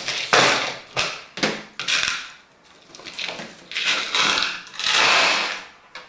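Small parts being rummaged through by hand, rustling and clattering in about six short noisy bursts with a lull a little past two seconds in: sorting through the PC case's supplied screws for the motherboard screws.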